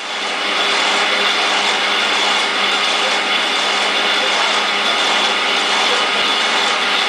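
Flexographic bag printing machine running: a loud, steady mechanical noise with a low hum and a high whine held over it.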